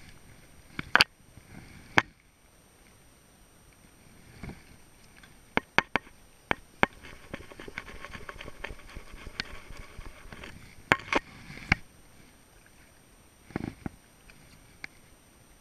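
Fly reel being wound, a dense run of fine ticks for about four seconds in the middle, with a handful of sharp clicks and knocks before and after.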